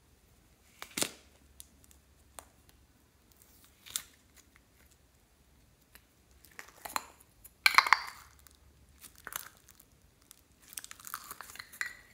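A plastic toy egg packed with foam-bead clay being squeezed and pried open by hand: irregular crackles and crunches of the shell and foam beads. The loudest burst comes about eight seconds in, and a run of small crackles follows near the end.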